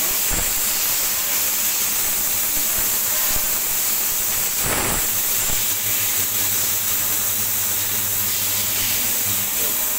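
CNC lathe running with its chuck spinning: a steady hiss. A low hum joins about halfway through and drops out near the end, as the tool is fed in by hand for a light turning cut.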